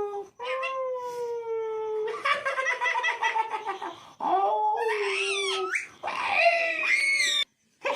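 A pet talking parrot vocalising: a long drawn-out call, then a rapid cackling run like mimicked laughter, then a string of sharp squawks that rise and fall in pitch, stopping abruptly near the end.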